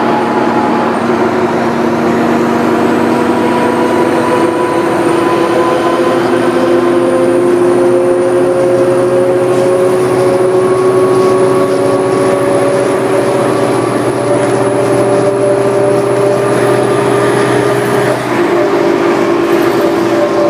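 Diesel engine and drivetrain of a New Flyer D40LF city bus, heard from inside the cabin while the bus is under way. The pitch rises slowly and steadily as it gathers speed, with a faint high whine climbing along with it. Near the end the pitch drops and the whine stops.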